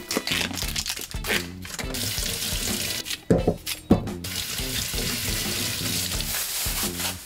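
Water running from a tap into a sink, cut off briefly near the middle, with music playing underneath.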